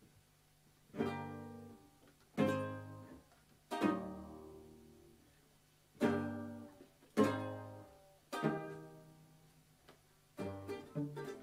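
Ukulele and plucked cello striking six ringing chords together, each left to die away, a second or two apart, then breaking into a quicker strummed rhythm near the end: the opening of a song.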